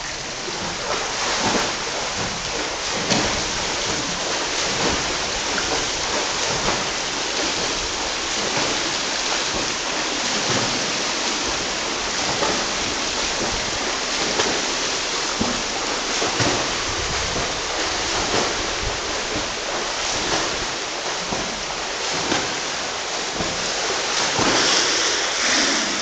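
Water splashing from a swimmer's butterfly strokes, a splash about every two seconds over a steady rush of water, louder near the end as the swimmer reaches the wall close by.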